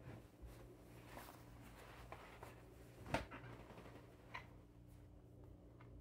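Near silence: indoor room tone with a faint steady electrical hum and a small knock about three seconds in.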